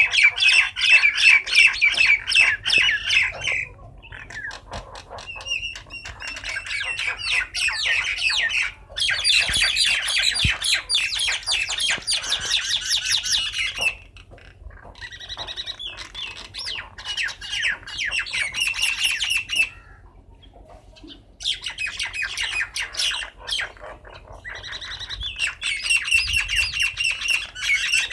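Birds squawking and chattering in a squabble, with rapid harsh calls in loud bouts of a few seconds broken by short lulls.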